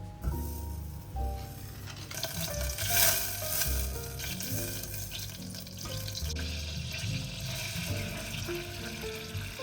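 Food sizzling in a hot frying pan, setting in about two seconds in and loudest around three seconds in, over soft background music with a slow melody.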